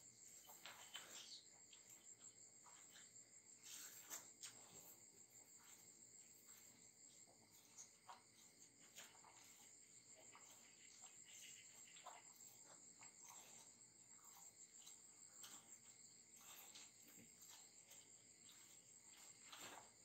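Near silence: faint, steady high-pitched insect chirring, with a few soft clicks and rustles.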